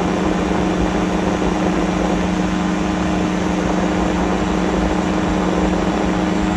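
Light aircraft engine and propeller droning steadily in flight, heard from inside the open cockpit of a CGS Hawk ultralight with heavy wind on the microphone.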